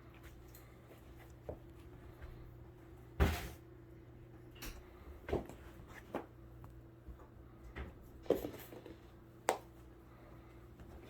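Kittens at play with a wand toy: scattered light taps and thumps, the strongest about three seconds in, over a faint steady hum.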